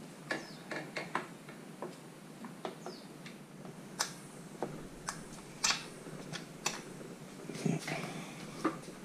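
Irregular clicks and light metallic knocks of a Fox Float X2 rear shock being fitted into a carbon downhill bike frame and its mounting bolt being pushed through with a hex wrench.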